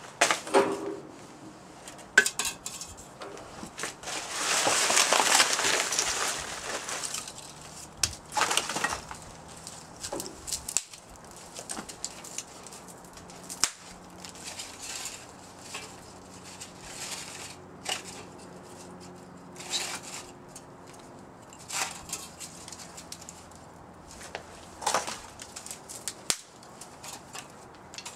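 Dry sticks and twigs being snapped by hand and pushed into a small metal stove made from a semi-truck oil filter: scattered sharp snaps and rustling of dry kindling, with a longer spell of crunching about four to seven seconds in.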